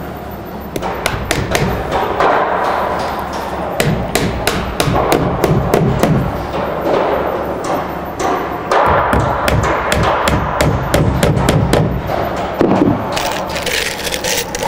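Hammer driving nails into a wooden door frame: a long run of quick, uneven taps. Background music plays underneath.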